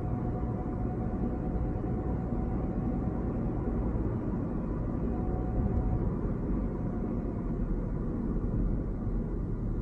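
Car driving along a road: steady low rumble of engine and tyre noise, with a faint steady whine over it that fades out about six seconds in.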